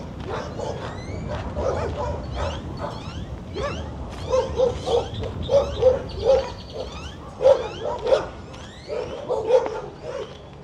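Several dogs barking and yipping over one another in short, repeated barks, a few a second, growing louder in the second half.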